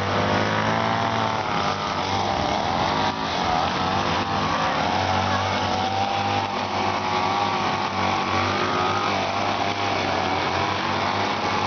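Small petrol engine of a grass-cutting machine running steadily under load. Its pitch wavers up and down throughout.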